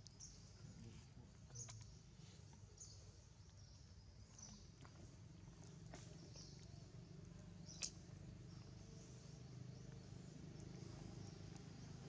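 Near silence: faint outdoor ambience with short high chirps roughly once a second and a single sharp click about eight seconds in.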